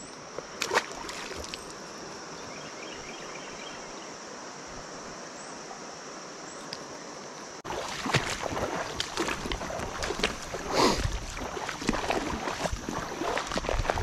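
Shallow creek water running over rocks, with a couple of brief splashes near the start as a fish is let go. About seven and a half seconds in it turns to louder, irregular sloshing and splashing of wading through the shallows.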